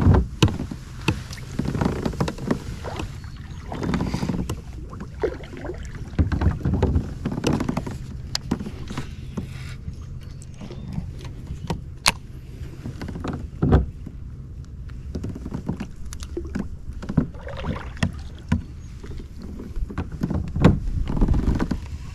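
Irregular knocks, clicks and rustles of handling aboard a plastic fishing kayak as a baitcasting rod and reel are cast and worked, with a few sharper knocks standing out.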